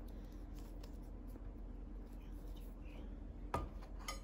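Faint handling noises: small clicks and rubbing as a wristwatch and its strap are lifted out of the watch box, with one sharper click a little after three and a half seconds.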